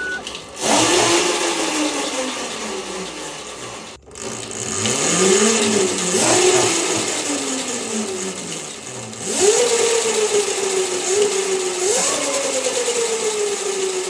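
Electric motorcycle's drive motor whining as the raised rear wheel is run up and let coast in sport mode: the pitch jumps up with each throttle blip and slowly falls away, over a hiss of drive and tyre noise. The motor cuts out briefly about four seconds in, and the sharpest run-ups come about two-thirds of the way through and near the end.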